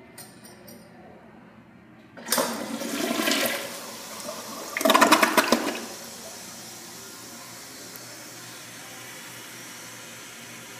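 Kohler Cimmaron tank toilet flushing: a rush of water starts about two seconds in, a louder surge comes about five seconds in as the bowl empties, and then a steady hiss follows as the tank and bowl refill. The flush itself is short.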